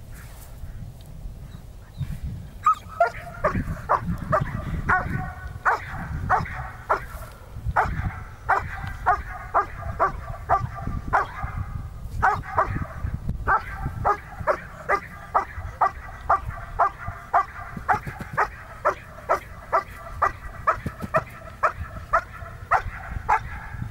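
German Shepherd barking steadily and aggressively at a decoy, as in a protection drill, about two to three barks a second, starting a couple of seconds in, with a short pause about halfway through.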